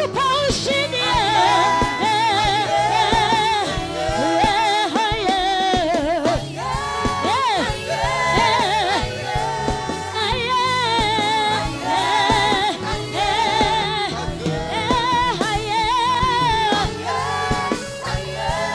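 Gospel worship music: voices singing a praise song with wavering, held notes over a steady instrumental backing.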